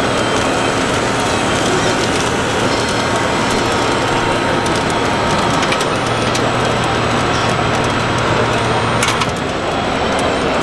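Small electric motors and gears of 1/14-scale RC construction models running, with steady high whining tones over a dense, constant noise; a low hum joins about six seconds in, and it and one whine cut off about nine seconds in.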